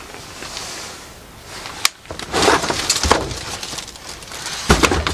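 Handling noises among clutter: a sharp click about two seconds in, then scattered crunching, rustling knocks.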